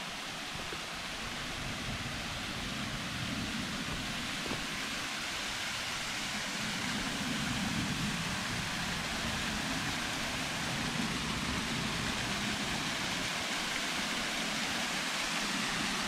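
Running water rushing steadily, growing gradually louder.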